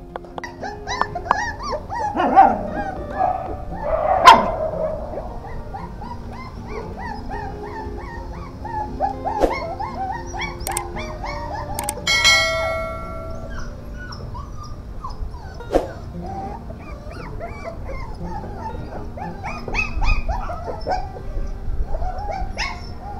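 Young dogs yipping, whining and barking in play, many short calls throughout, over faint background music. About halfway through comes a click and a bell-like chime from a subscribe-button sound effect.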